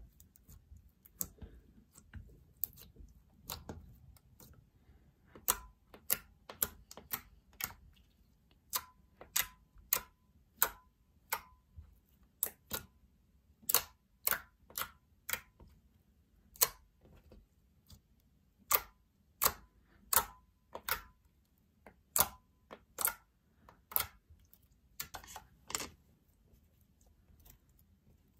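Glossy glue slime being poked and pressed with fingers, giving sharp clicking pops. A few come in the first seconds, then they come irregularly, often one to three a second.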